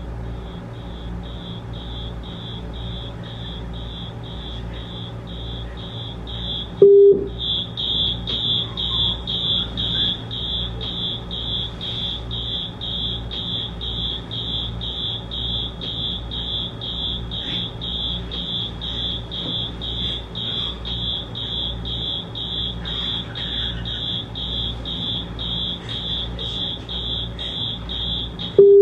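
Recorded smoke-alarm beeping played through a large speaker as a fake fire alarm: a high-pitched beep repeating about twice a second. It is fainter at first, and after a short loud blip about seven seconds in it is louder.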